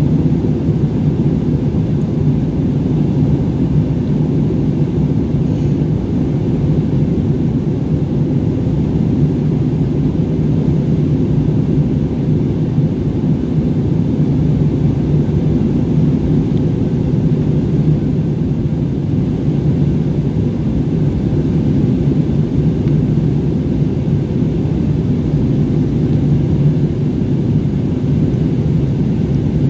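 Jet airliner cabin noise heard from a window seat in flight: a steady low rumble of engines and airflow that does not change.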